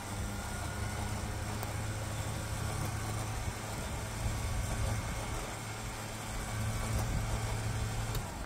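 Xbull 13500 electric winch motor running steadily as it reels in the last few feet of line, held taut by hand, then stopping just before the end.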